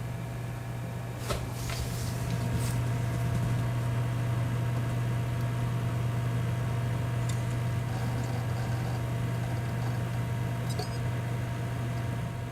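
A desktop PC's hard drives spinning: a steady low hum that swells a little louder about two seconds in, with a few faint clicks scattered through it.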